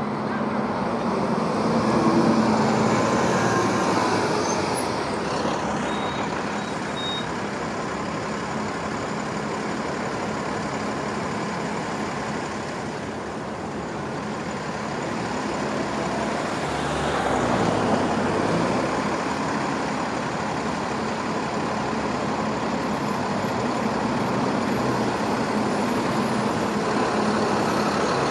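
Transit buses and road traffic going by, engines running, with a louder bus passing about two seconds in and another around seventeen seconds in.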